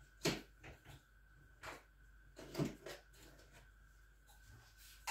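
A few light, scattered knocks and clunks of kitchen items being handled, the loudest about two and a half seconds in.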